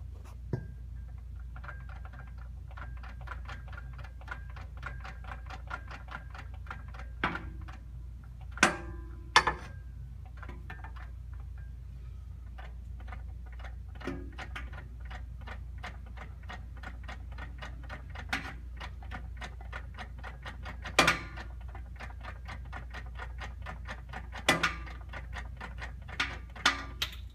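2001 Pontiac Trans Am transmission ticking and clicking in quick succession as the disconnected driveshaft is turned by hand in neutral, with several louder clunks. The owner calls it weird and is tracing a bad noise at low rpm, with the u-joints already ruled out.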